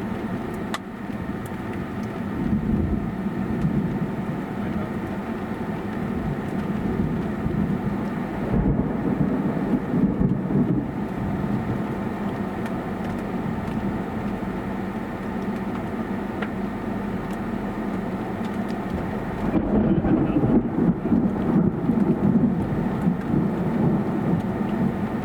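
Low rumbling storm noise under a faint steady hum, swelling louder twice: about eight seconds in, and again near the end.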